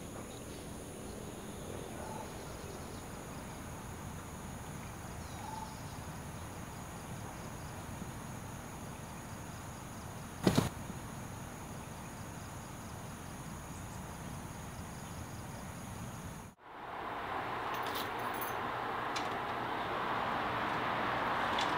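Garden ambience with a steady high insect drone, broken by a single sharp loud knock about ten seconds in. After a sudden cut, a steady rushing hiss that grows slowly louder.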